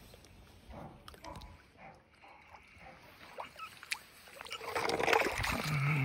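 Lake water splashing and lapping at the shoreline, with scattered small clicks and a louder splashing rush about five seconds in.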